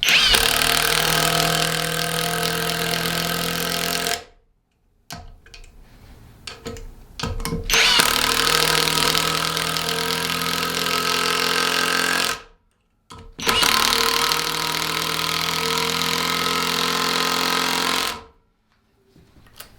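Cordless brushless 1/4-inch impact driver hammering as it drives a bolt, in three long runs of a few seconds each with short pauses between them.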